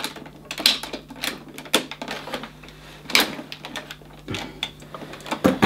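Irregular clicking of the switches on a Hoover Concept One upright vacuum as they are worked while the machine fails to run, over a faint steady hum. The owner suspects its repaired power cable.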